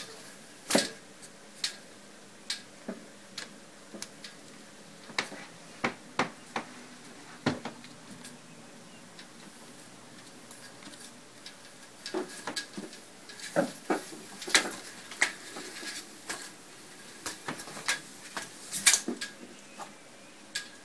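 Venetian blind slats clicking and rattling against each other as a cat pushes through them: irregular sharp clacks, sparse for a few seconds midway, then coming in quick clusters, with the loudest clack near the end.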